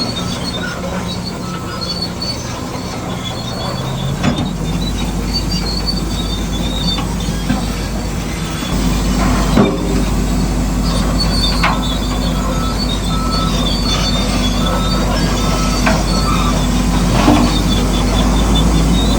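Tracked bulldozer at work: its engine runs steadily while the metal tracks squeal and clank. The low engine note steps up about four seconds in and again near nine seconds, as if under more load.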